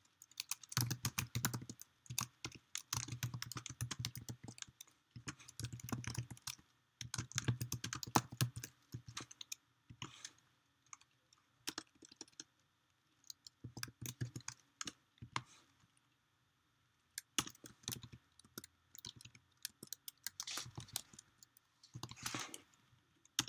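Typing on a computer keyboard in quick bursts of keystrokes, with short pauses between them, as a line of code is entered.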